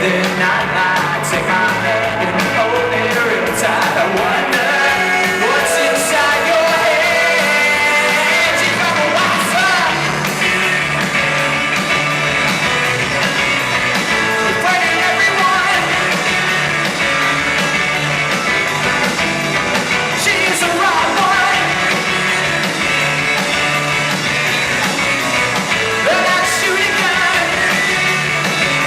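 Rock song with a singing voice over guitars and drums; the bass comes in fuller about ten seconds in.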